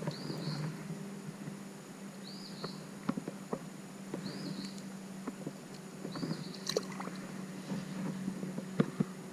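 Water sloshing and splashing around the legs while wading in a creek, with scattered small clicks and splashes. Over it, a short rising-and-falling chirp repeats about every two seconds.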